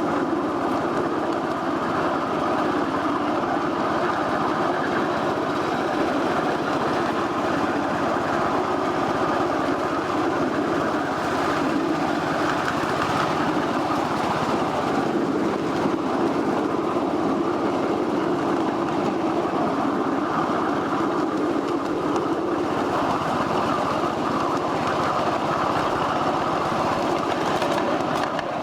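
1/8-scale ride-on miniature train running along its track, heard from aboard: a steady, continuous rumble of wheels on rail with the running gear.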